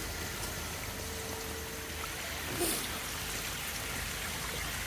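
Steady rush and trickle of water running through a koi pond's filtration system, the filter shower and drums, with one brief tap about two and a half seconds in.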